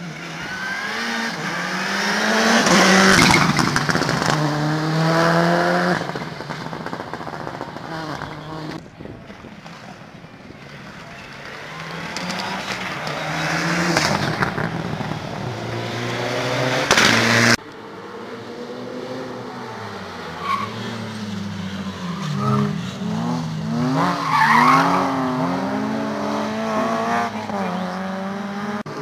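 Rally cars accelerating hard past on the stage, engines revving up through the gears with repeated rising pitches and drops at each shift. One pass ends in an abrupt cut, and the next car revs up and down as it works through a bend.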